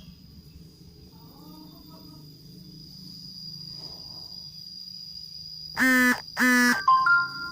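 A steady high thin whine underneath, then two loud, flat buzzing tones of about half a second each near the end, followed by a few short, higher beeps.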